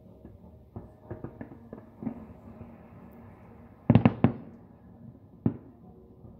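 Fireworks shells bursting: a few light pops about a second in, then a quick cluster of loud bangs about four seconds in and a single bang a second and a half later.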